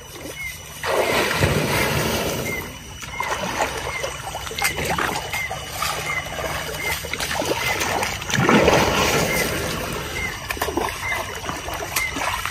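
Water splashing and sloshing as an elephant rolls and bathes in a pool, with two bigger surges of splashing, about a second in and again about eight seconds in.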